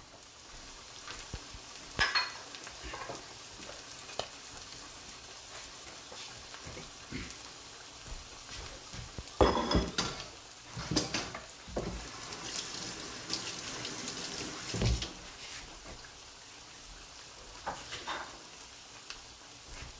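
Food sizzling steadily and faintly in hot pans on the stove. Scattered clatter of dishes and utensils comes through, with the loudest knocks about ten seconds in.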